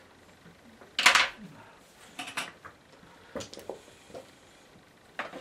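Painting tools being handled and set down on a table: one loud, short rattle about a second in, then a few lighter clicks and knocks.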